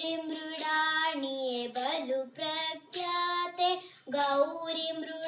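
A girl singing a Kannada devotional song to Goddess Gauri, holding long notes that bend and waver in pitch.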